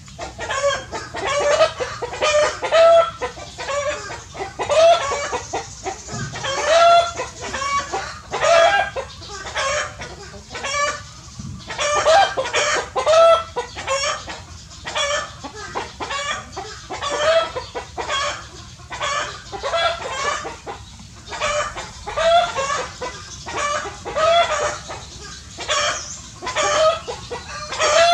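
A busy chorus of short, pitched animal calls, several a second and overlapping, with no let-up.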